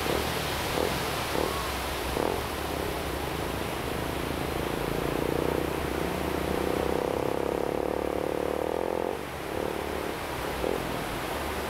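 Steady wash of surf breaking on a sandy beach. A droning hum comes in about four seconds in and stops about nine seconds in, with a few short faint tones scattered around it.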